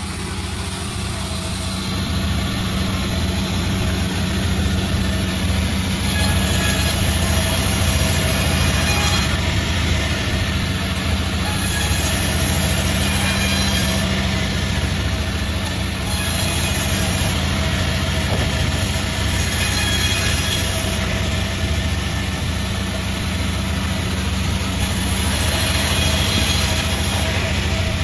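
Sawmill running with a steady low mechanical hum, broken five times by a couple of seconds of louder, higher-pitched hissing noise as the blades cut through mahogany wood.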